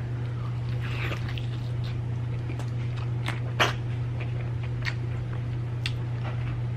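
Close-up eating sounds of fried chicken being chewed: scattered wet smacks and crunchy clicks, one sharper smack a little past the middle, over a steady low hum.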